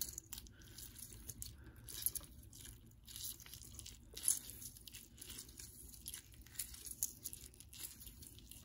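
A lime half squeezed by hand over a metal spoon: faint crackling and squishing of the rind and pulp, with a few sharper clicks.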